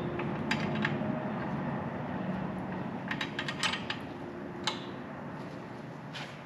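Scattered light metallic clicks and clinks of a wrench on a brake line fitting as it is tightened, with a small cluster of quick clicks in the middle, over a steady low hum.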